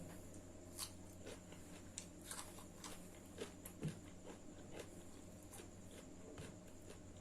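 Faint eating sounds of chicken fried rice and chicken legs: scattered soft clicks and smacks of chewing and biting, a dozen or so spread irregularly over several seconds.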